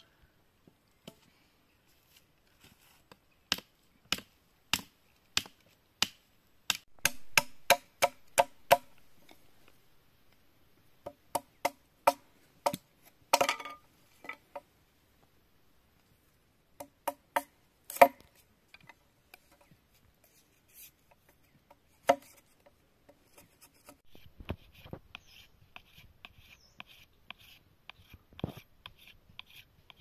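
Machete blade chopping and striking thin green bamboo, in runs of sharp, evenly paced knocks about one to two a second. Near the end come lighter, quicker strokes with a scraping edge.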